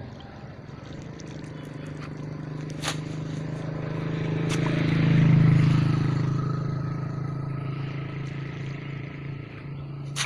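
A motor engine drones steadily, growing louder to a peak about halfway through and then fading as it passes. Two sharp clicks come a second and a half apart just before the peak.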